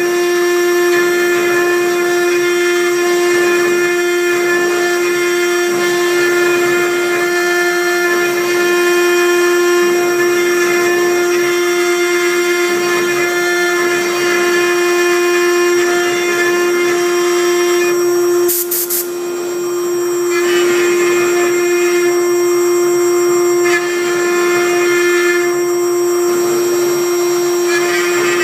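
CNC router spindle running with a steady high whine while its bit engraves into MDF. The sound dips briefly, with a short high click, about two-thirds of the way through.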